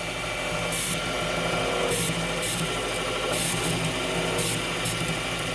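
Metal lathe spindle running with a steady motor hum while a carbide tool is fed slowly into the face of a bar, the cut making an uneven, intermittent scraping hiss.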